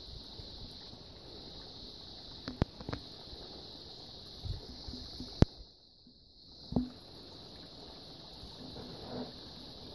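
Steady faint trickle of a small spring flowing over rocks, with a handful of short knocks and scuffs on rock, the sharpest about five and a half seconds in.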